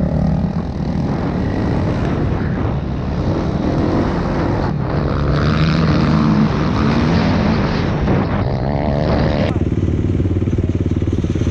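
Kawasaki KX450 dirt bike's single-cylinder four-stroke engine running under throttle, revving up and down as it rides, then dropping to a steadier, lower note near the end.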